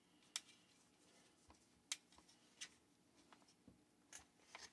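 Light handling of a chainsaw's plastic housing and fuel line during reassembly: a few scattered sharp clicks and taps, about four louder than the rest, over near silence.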